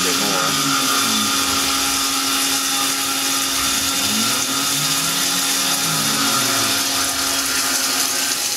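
Tormach PCNC CNC mill cutting with an end mill under high-flow flood coolant: a steady loud hiss of coolant jetting and splashing over the cutter and work, over a steady hum, with machine tones that rise and fall as the cut moves along.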